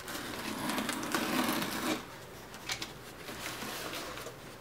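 A knife blade slicing through the packing tape on a cardboard box, a rasping scrape lasting about two seconds, followed by lighter taps and rustles of the cardboard being handled.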